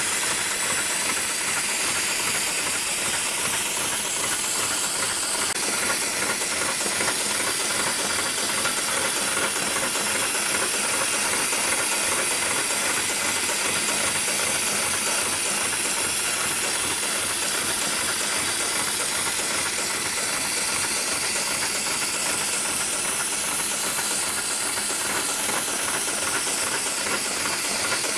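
Heavy-duty programmable industrial sewing machine running continuously, with a steady hiss like air rushing over a mechanical hum.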